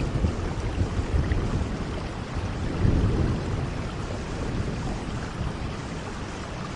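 Steady heavy rain with low rumbles of thunder, swelling about three seconds in.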